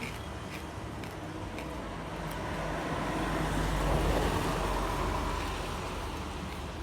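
A Sprinter diesel railcar train passing close by, its rumble growing louder to a peak about four seconds in and then fading.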